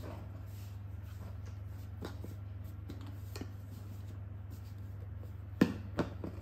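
Plastic lunchbox being handled: light knocks and scrapes as it is moved about, then three sharp clicks near the end, the first the loudest, as the lid is pressed down shut. A steady low hum runs underneath.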